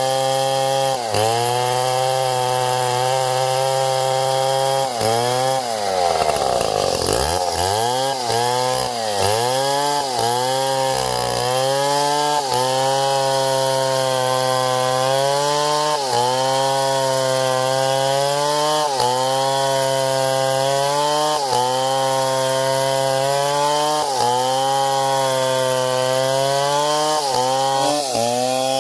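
Chainsaw engine running under load while cutting wood, its pitch sagging each time the chain bites and picking back up, every second or two. About six seconds in it drops steeply and revs back up over a couple of seconds.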